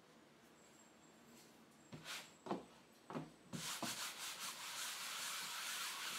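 Hands rubbing and smoothing cotton fabric down onto a glued cardboard heart, pressing it so the glue takes. A few short rustles and knocks come as the piece is handled and turned over. About halfway through, a steady brushing rub starts and keeps going.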